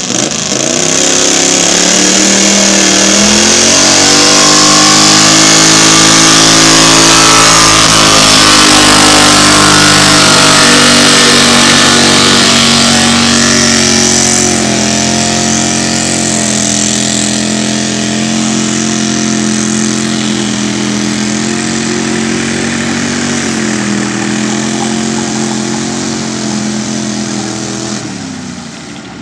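Modified garden pulling tractor's engine running flat out under load during a pull. The revs climb over the first few seconds and hold high and steady, then drop a little and fade away near the end.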